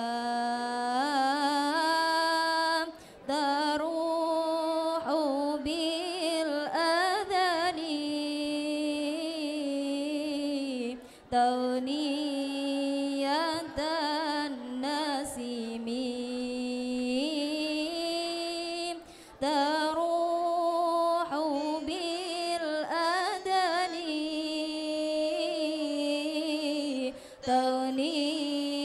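A choir of young women singing a lalaran chant together, a melodic sung recitation in long held phrases that break briefly about every eight seconds.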